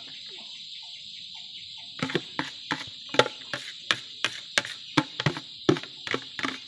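Sharp, irregular knocking, about three knocks a second, starting about two seconds in, as a ladle is tapped against a plastic basin. A steady high insect drone from crickets runs underneath.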